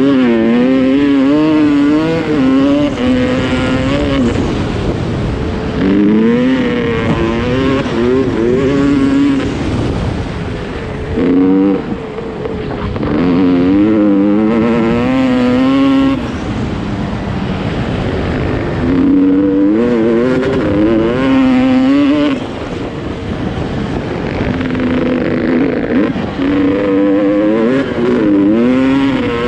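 Dirt bike engine being ridden hard off-road, the revs rising and falling again and again with throttle and gear changes, easing off briefly a few times.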